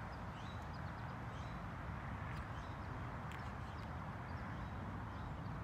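Outdoor ambience: a steady low rumble with faint, scattered bird chirps and a couple of light clicks.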